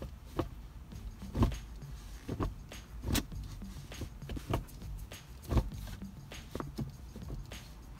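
Stock gear lever of a BMW M235i six-speed manual being moved in and out of gears, giving an irregular series of clicks and clunks as it snaps into each gate. The stock shifter has play in neutral and in gear, and its feel is plasticky and sloppy.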